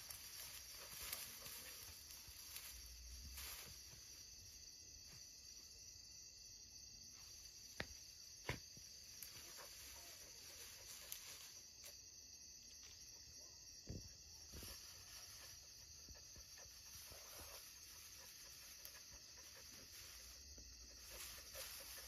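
Near silence: a faint, steady chorus of night insects, broken by a few short sharp clicks, about eight seconds in and again about fourteen seconds in.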